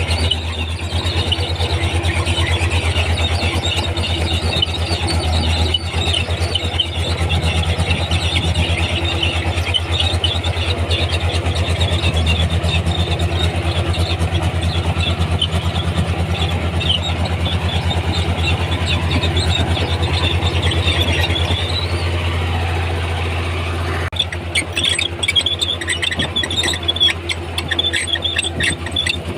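Komatsu D31P bulldozer's diesel engine running steadily, with high-pitched squealing from its steel tracks as it moves. About 24 seconds in the engine note drops and the squeals become sharper and more broken.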